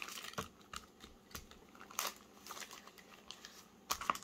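Thin clear plastic sheet crinkling and crackling as hands press it onto a thin Bible page and peel it off again, printing watercolour onto the page by smushing. Irregular small crackles, with sharper ones about two seconds in and near the end.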